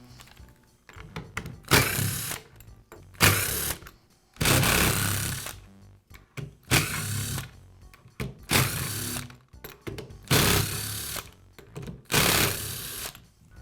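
Power screwdriver running in short bursts, about seven times, backing out the screws that hold one side of a belt sander's motor housing.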